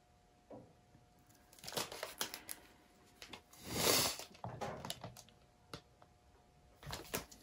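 Rustling and light knocking as gloved hands handle and shift a painted board on a paint-pouring spinner, with one louder rustle about four seconds in.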